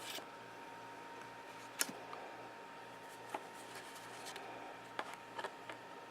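Trading cards being handled: a few sharp clicks and light snaps of card stock, spaced irregularly, the sharpest just under two seconds in. A faint steady high hum runs underneath.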